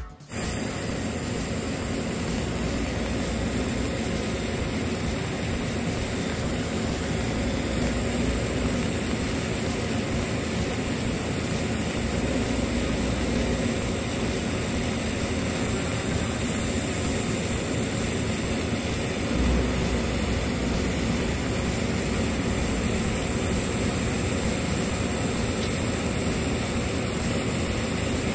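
TIG welding arc burning steadily on 316 and 304 stainless steel plate: an even hiss with a thin high-pitched whine running through it, starting suddenly at the outset.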